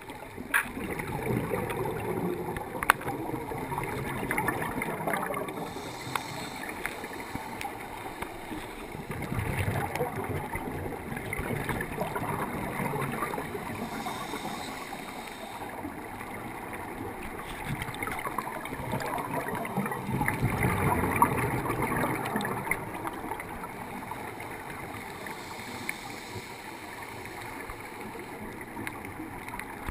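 Scuba regulator exhalations heard underwater: three long swells of rushing bubble noise, roughly ten seconds apart, with a few sharp clicks between them.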